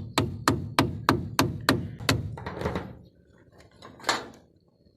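A quick series of about eight sharp hammer taps, roughly three a second, stopping about two seconds in, followed by a brief scrape or rustle.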